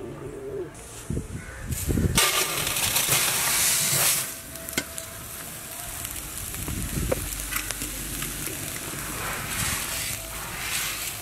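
Coarse salt poured into a large metal pot, a loud rushing hiss for about two seconds, then softer gritty scraping as a hand spreads the salt across the pot's bottom.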